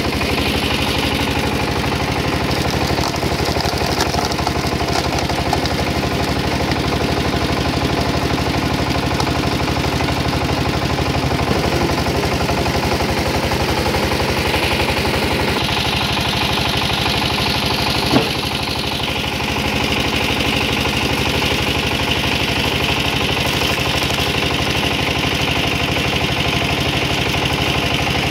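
Engine driving a hydraulic log splitter, running steadily with an even, fast pulse, as the ram pushes logs through the splitting wedge. A single sharp crack about two-thirds of the way through.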